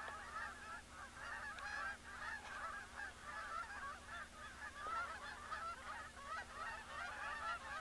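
A large flock of geese honking in flight, with many calls overlapping into a continuous chorus.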